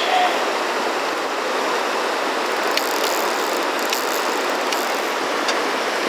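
Rushing river water from rapids: a steady, even noise with no change in level.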